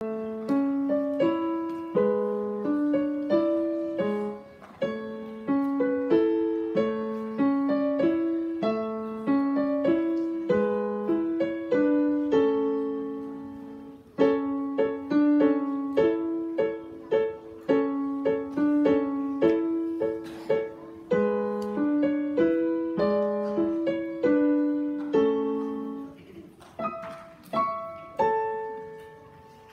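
Digital piano played solo: a short piece with a melody over a repeating low accompaniment figure. It slows near the end to a final held chord that fades away.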